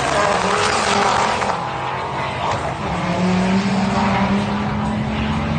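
Two cars launching in a drag race and accelerating hard away down the strip, their engines revving up through the gears: rising engine notes in the first second and a half, then a steadier note from about three seconds in.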